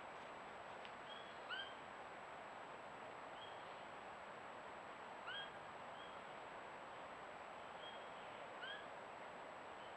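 Short, high, upslurred animal calls repeated every one to two seconds over the steady hiss of a trail camera's microphone, with a faint steady high whine underneath.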